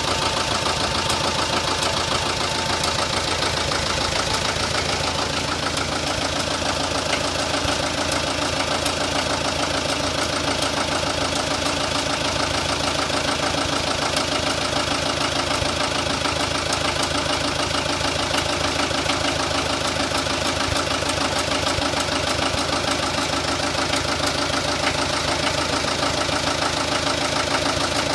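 Fahr D180H tractor's diesel engine idling steadily with an even, rapid beat.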